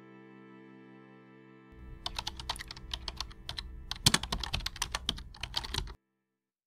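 Soft background music, then from about two seconds in a quick, irregular run of key-tap clicks as text is typed on a smartphone's on-screen keyboard. The sound cuts off abruptly about six seconds in.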